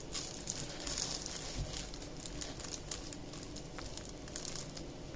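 Clear plastic packaging bags crinkling and rustling as they are handled, a run of irregular sharp crackles.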